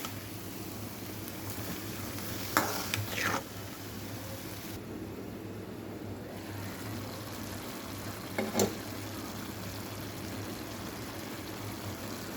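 Food sizzling as it fries in a pan, with a few short sharp knocks or scrapes at about two and a half, three and eight and a half seconds in.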